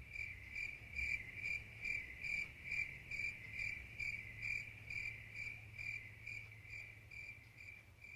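Cricket chirping as a sound effect: a steady, high chirp repeated evenly a little over twice a second, fading slightly toward the end and stopping near the end.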